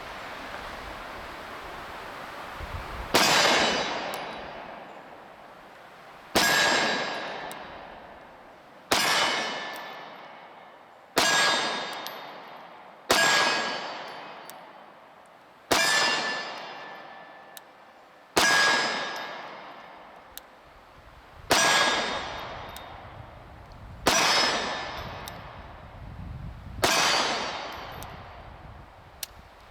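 SIG Sauer P365 9mm pistol fired slowly, ten single shots about every two and a half to three seconds. Each shot ends in a ringing metallic clang that dies away over a couple of seconds, typical of a steel target being hit.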